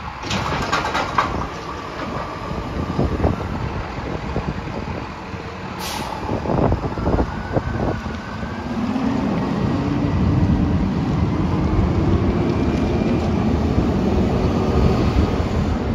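Front-load garbage truck's diesel engine running as the truck pulls away, with a short, sharp air-brake hiss about six seconds in. From about nine seconds the engine note rises and gets louder as the truck accelerates off.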